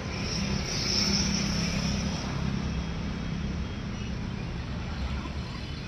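A distant engine droning steadily, louder about a second in and then slowly fading.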